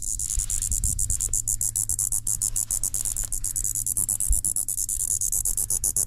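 A male Olympic scrub cicada buzzing loudly while held in the hand: a high, harsh buzz broken into fast, even pulses, with handling bumps underneath.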